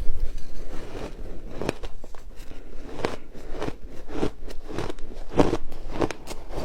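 Ice being bitten and chewed close to the microphone: a run of irregular sharp crunches, the strongest of them in the second half.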